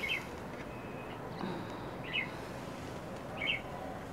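A small bird chirping, three short high notes spread a second or more apart, over a steady background hiss.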